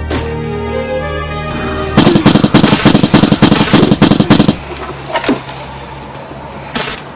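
Film soundtrack music with sustained tones, broken about two seconds in by a loud, rapid rattle of sharp bangs lasting about two and a half seconds, then quieter again with two brief swishes near the end.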